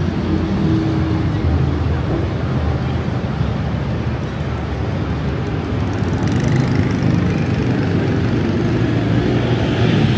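City street traffic noise: a steady wash of passing cars and engines, growing a little louder in the second half.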